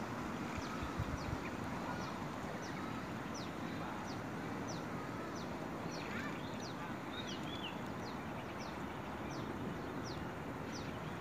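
A bird repeats a short, high, falling note about twice a second, with a few other chirps near the middle, over a steady outdoor background hiss.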